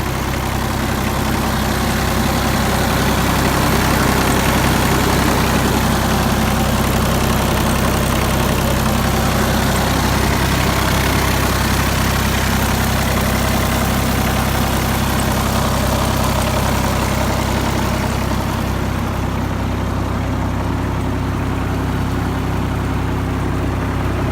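Diesel engine of a Terex PT-30 tracked skid steer running steadily, a little louder for a while a few seconds in, then settling back.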